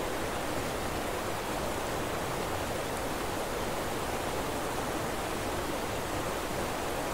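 A steady, even rushing noise with no rise or fall: the masking sound bed of a subliminal audio track, meant to hide quietly played affirmations beneath it.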